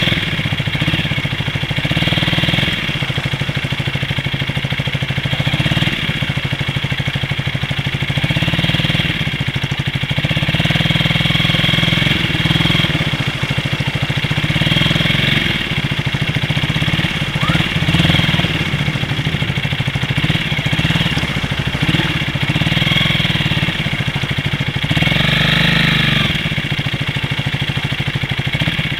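A vehicle engine running steadily while driving through a flooded street, with traffic and water splashing swelling and fading several times.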